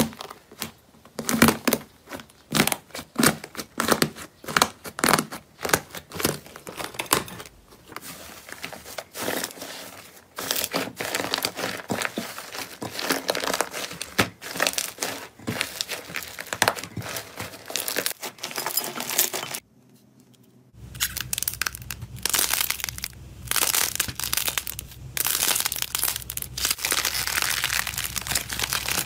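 Hands pressing, squishing and stretching slime: crisp crackling and popping of the slime and its trapped air. The first several seconds are separate presses about every half second, then the crackling turns denser. After a short near-silent break about twenty seconds in, a thicker slime crackles over a steady low hum.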